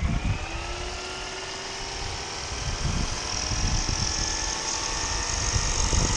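Roban 700-size Black Hawk scale RC helicopter spooling up for takeoff: the electric motor and rotor gearing whine rising slowly in pitch and then levelling off, with a high whine growing stronger about halfway through. Wind buffeting the microphone underneath.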